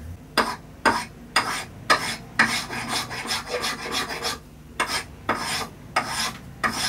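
Small hand plane shaving the sharp corners off a wooden knife handle: a run of short scraping strokes, about two a second.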